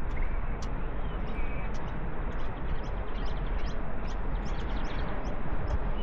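Wind rushing over the camera's microphone, with small birds chirping and twittering in the scrub; the chirps come thickest around the middle, with a few short whistles.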